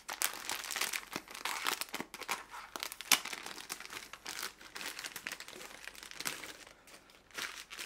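Packets of spare drone propellers being opened and handled: irregular rustling of the packaging with scattered small clicks, one sharp click about three seconds in standing out as the loudest.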